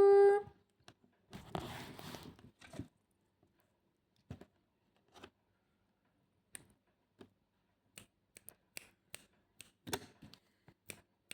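Tail end of a parrot's high call at the very start, then a short rustling tear about one and a half seconds in, followed by scattered small sharp clicks and ticks, consistent with a pet parrot nibbling and tearing at roti.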